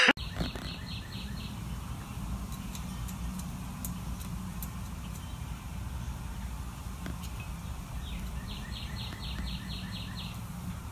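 Outdoor ambience: a steady low rumble, with a bird's quick run of short chirps, about five or six a second, near the start and again near the end.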